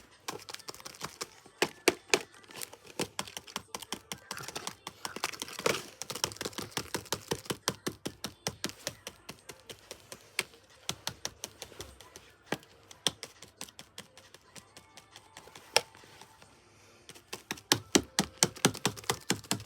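Slime being pressed and squished, making rapid, irregular clicking pops several times a second. The clicks come thickest in the first few seconds and again near the end, and thin out in the middle.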